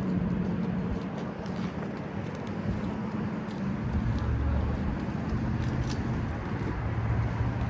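Car engine running with a steady low hum that drops in pitch about halfway through.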